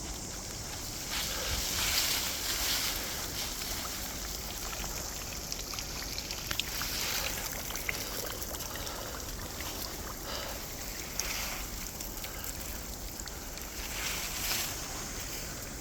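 Steady rush of running water, with brief rustles and a few light clicks now and then.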